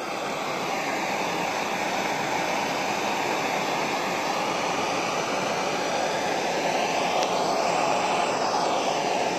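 Handheld gas torch burning with a steady hiss as its blue flame is played over a wooden block, scorching the wood.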